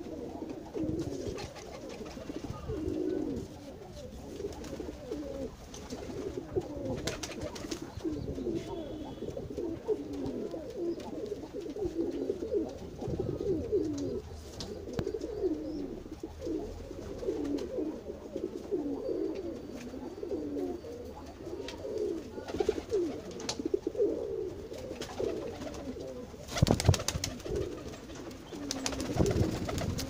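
A flock of domestic pigeons cooing, many low coos overlapping without a break. Near the end there is a brief, louder knock.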